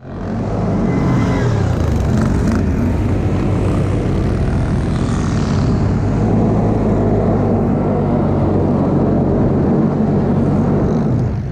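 ATV engine running under throttle, a loud steady drone whose pitch shifts slightly as the revs change.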